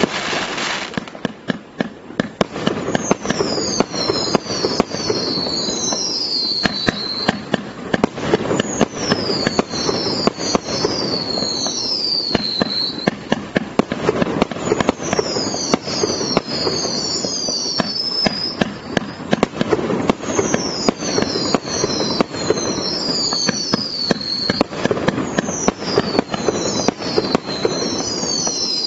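Maxsem MC251 fireworks cake firing continuously: a dense run of launch thumps, pops and crackling bursts, with clusters of high whistles falling in pitch about every five to six seconds.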